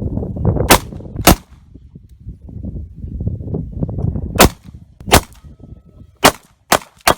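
Glock 43 9mm subcompact pistol firing about seven shots at an uneven pace: two about half a second apart near the start, then single shots roughly a second apart that come quicker near the end. A low rumble runs under the first few seconds.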